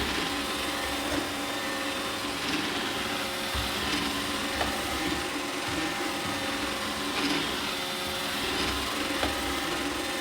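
iRobot Roomba 880 robot vacuum running: a steady whir of its motor and brushes with a few light knocks.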